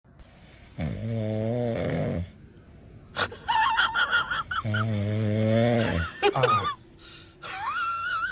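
Three long, low snores, each about a second and a half, alternating with a high, wavering whistle on the out-breath.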